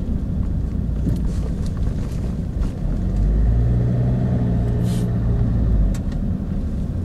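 Low rumble of a moving car, heard from inside: tyre and road noise with engine hum. About three seconds in, the engine note grows stronger and steadier for a few seconds, then falls back.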